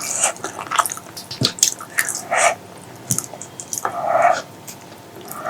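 Close-miked wet eating sounds: chewing spicy pork leg curry with rice, with rapid lip smacks and mouth clicks and a couple of louder wet smacks or slurps partway through.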